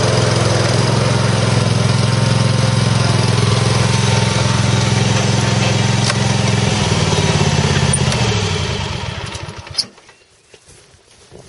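Scag 36-inch walk-behind mower's 17 horsepower Kawasaki engine running steadily, then shut off about eight seconds in and spinning down to a stop.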